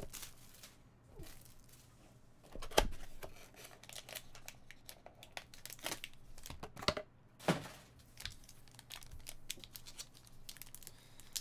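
Foil trading-card packs from a Panini Gala box crinkling and tearing as they are handled and slit open with a box cutter, with scattered rustles and a few sharp knocks, the loudest about three seconds in.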